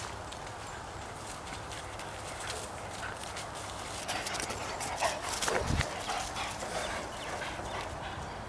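Dogs running on grass: a quick run of paw footfalls, louder from about four seconds in as the dogs come close.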